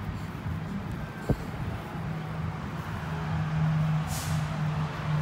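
Steady low hum of a running engine, firming up about two seconds in, with one sharp knock about a second in and a short hiss around four seconds in.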